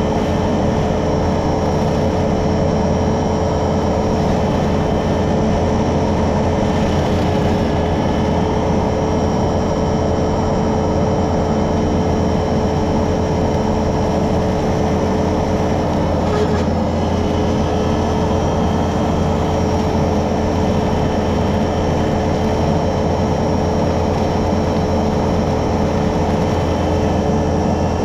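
Kubota SVL65 compact track loader's diesel engine and hydraulic brush cutter running steadily, a constant drone with a steady whine.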